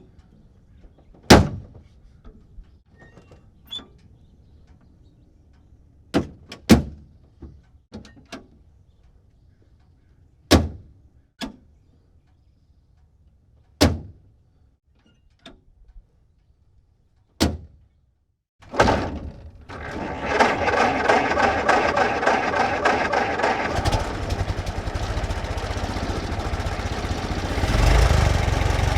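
Doors of a 1924 Ford Model T stake bed pickup opened and shut several times, each take a sharp metal slam with quieter clicks between. About two-thirds of the way in, the Model T's four-cylinder engine is crank-started and settles into a steady idle, swelling briefly near the end.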